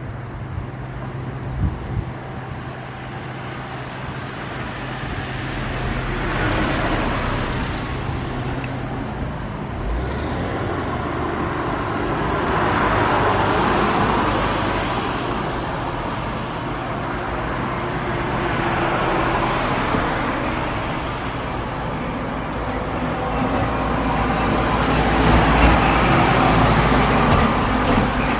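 Street traffic: several vehicles passing one after another, each rising and fading, over a steady low hum.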